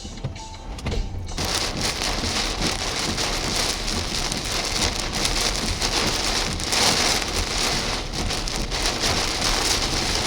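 Heavy rain falling hard in a thunderstorm, a dense steady hiss that comes up about a second in and holds loud throughout.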